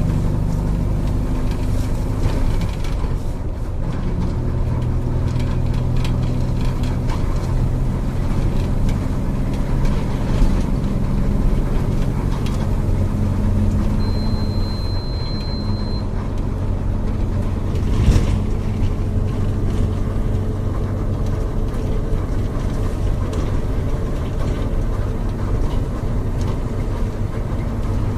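Diesel engine of a Volkswagen 17.230 OD bus running as the bus drives, its pitch shifting up and down several times with changes in engine speed. A short high beep sounds midway, and a single knock comes a few seconds later.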